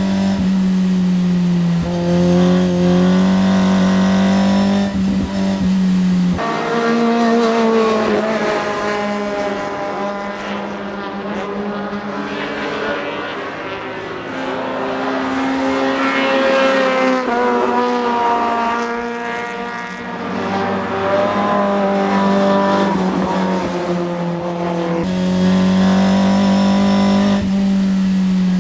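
Toyota 4A-GE 20-valve (five valves per cylinder) 1.6-litre inline-four in a Vivace 908 race car, heard onboard at speed. It holds a steady high note for the first several seconds. The tone then changes abruptly, and the pitch rises and falls repeatedly as the car is driven through gears and corners. The steady high note returns near the end.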